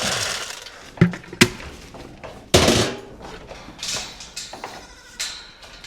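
Two sharp metal knocks about a second in, then a louder rattling clank a little later, as a barn gate and its latch are worked open.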